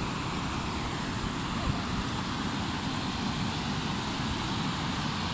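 Steady rushing of river water pouring over a low dam and through the shallow rapids below it.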